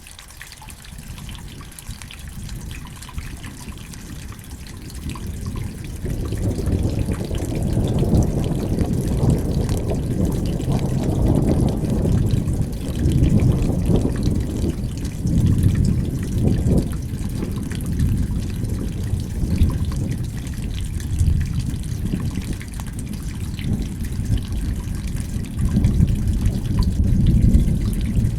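Rain falling, with a deep rumble of rolling thunder that builds over the first six seconds or so and then stays loud, surging and easing.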